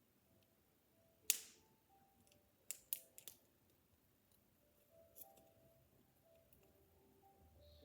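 A few sharp clicks and snaps of a plastic candy package being handled and pried at, the loudest about a second in and a quick cluster of three near the middle, over faint music.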